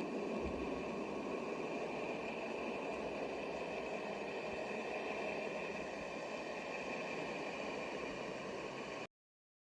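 Space 'planet sound' made from spacecraft radio and plasma-wave data: a steady rushing drone with a faint steady high tone above it, cutting off abruptly near the end.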